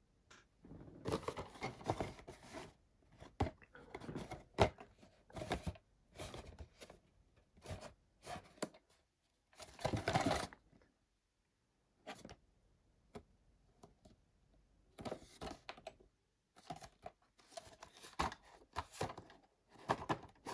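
Small cardboard model-kit box being handled and turned over in the hands: irregular scuffing and rubbing against the cardboard with scattered taps and clicks. A quieter stretch in the middle holds only a few single clicks.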